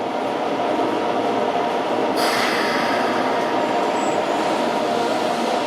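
Toei Shinjuku Line 10-000 series electric train pulling out of the station, a steady running noise that brightens about two seconds in as a high whine joins it.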